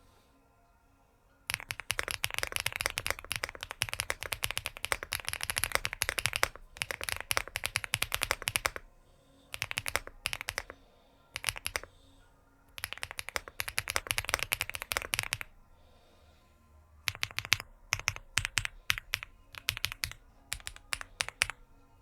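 Mechanical keyboard being typed on: fast runs of keystrokes in several bursts with short pauses, then a slower run of separate, louder key presses near the end.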